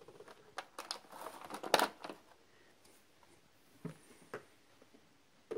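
Figurine chess pieces being handled and set down on a folding chessboard: a rustle with a sharp knock about two seconds in, then a few light taps.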